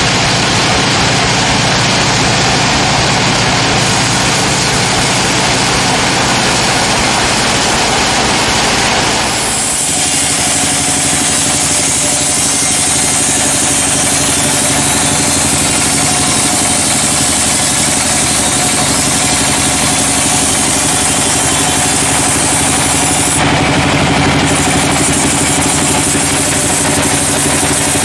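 Sawmill log band saw running and sawing lengthwise through a large teak log with a loud, steady mechanical drone. The sound changes abruptly about ten seconds in, becoming brighter with a steady high hiss.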